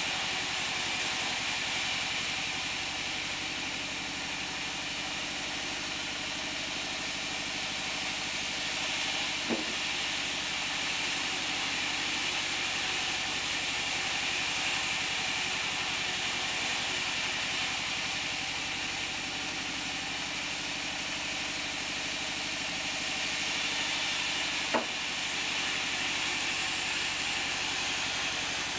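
Band sawmill machine running steadily with a continuous hissing whir, broken by two short sharp knocks, one about a third of the way in and one near the end.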